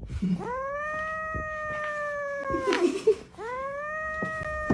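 A cat yowling in two long, drawn-out calls, each holding a steady pitch and dropping at the end; the second begins about three and a half seconds in. A sharp knock sounds between the two calls.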